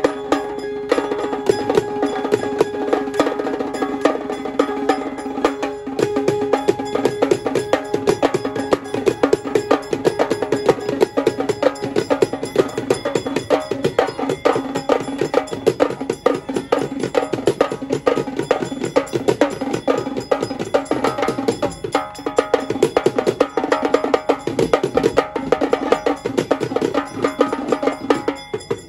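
A street band's drummers playing fast, driving rhythms with sticks on rows of tom drums, the strokes dense and unbroken. A held melody note rings behind the drumming for roughly the first half.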